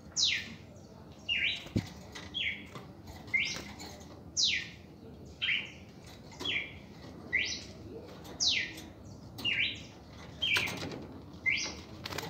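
Red-crested cardinal singing, a loud two-note phrase repeated about once a second: a short rising note, then a longer note sweeping down from high to lower pitch. Wings flutter briefly near the end.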